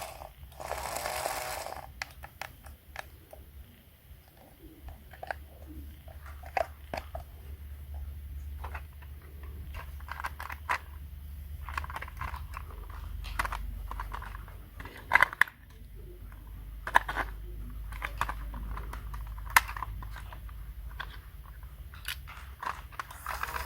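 A small motor whirs for about the first two seconds. Then come scattered clicks, taps and crunchy handling noises over a steady low hum, with a few sharper knocks around the middle.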